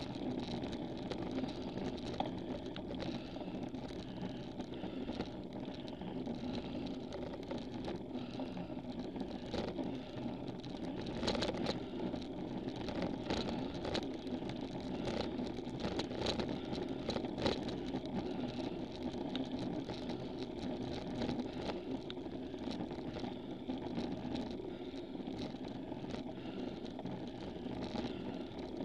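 Road bike climbing slowly up a steep grade: steady tyre and drivetrain noise picked up through a handlebar-mounted camera, with a run of sharp rattles about midway.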